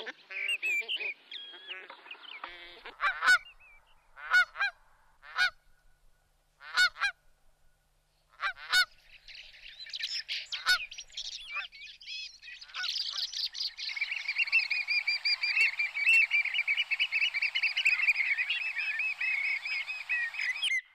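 Geese honking: single honks about a second apart, then, from about two thirds of the way in, a flock calling in a dense, continuous chorus of higher-pitched calls.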